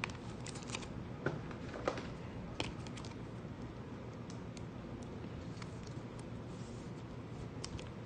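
Faint, scattered clicks and taps of trading cards being handled and sorted, over a steady background hum of an electric fan.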